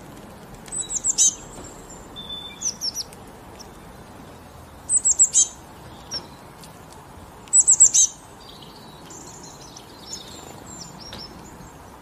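Small songbird chirping: high-pitched chirps in quick bursts of four or five, three times (about a second in, about five seconds in and about eight seconds in), with softer scattered notes between.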